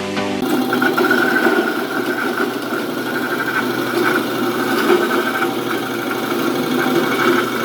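Clove-flower slicing machine running steadily under power, with an even, constant drone. It comes in about half a second in, right after background music stops.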